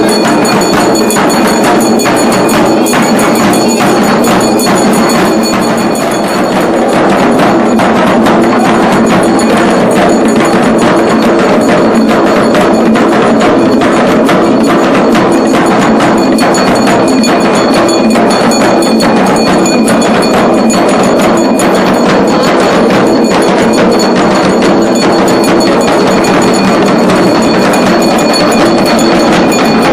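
A group of drummers playing large barrel drums with sticks in a loud, fast, unbroken beat, with a steady metallic ringing over the strokes.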